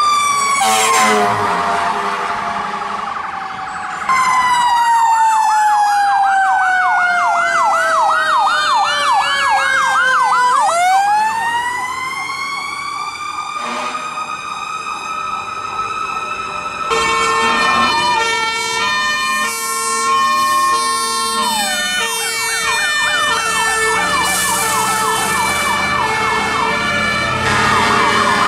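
Fire engine sirens from several responding trucks, one after another. A warbling siren falls steadily in pitch, then about ten seconds in a siren sweeps sharply up and levels off into a held wail. Later comes a stretch of alternating two-note tones, followed by fast warbling again.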